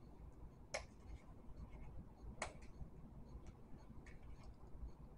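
Quiet handling of a small plastic lip oil tube and its packaging: two sharp clicks about a second and two and a half seconds in, with a few fainter ticks between.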